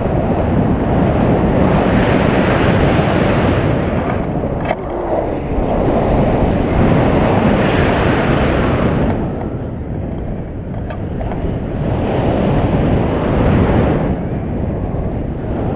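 Wind rushing over an action camera's microphone on a pole in front of a tandem paraglider in flight: a loud, steady rumble that swells and eases every few seconds.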